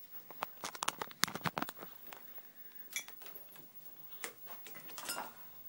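Scattered light clicks and taps of handling: a quick cluster in the first two seconds, then a few single ones, as the recording phone is moved about.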